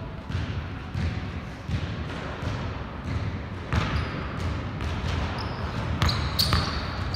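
Basketball bouncing on a hardwood gym floor in irregular dribbles, with sneakers squeaking briefly a few times near the end.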